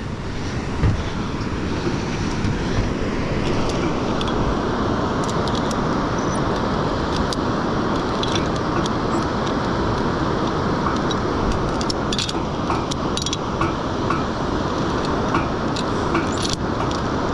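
Zip line trolley running along its steel cable, a steady rushing noise mixed with wind on the microphone, with scattered light metallic clinks from the harness hardware.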